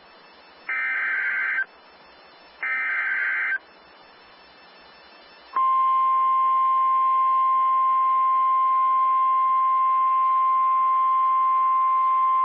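Emergency Alert System SAME header, sent as harsh electronic data screeches: two one-second bursts about a second apart. About five and a half seconds in, a single steady electronic alarm tone of about 1050 Hz, as used by NOAA Weather Radio, starts up: the attention signal before a new severe thunderstorm warning.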